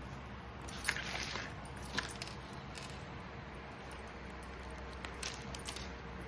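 Small hard items being handled during an unboxing: a few short clicks and light clinks, with a brief clatter about a second in and another cluster near the end.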